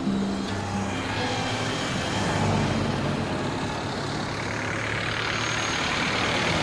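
Road traffic: vehicle engines and tyres running, with one vehicle passing close and swelling near the end. A few notes of acoustic guitar music die away at the very start.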